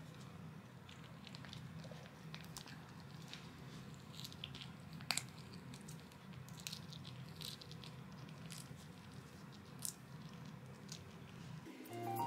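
A Chihuahua gnawing a dry chew: faint, irregular crunches and small clicks of teeth on the chew. Piano music comes in at the very end.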